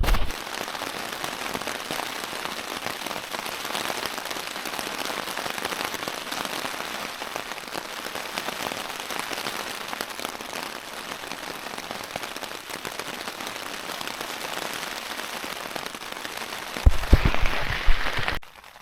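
Steady rain pattering on a tent. Near the end it swells louder, with a few low thumps.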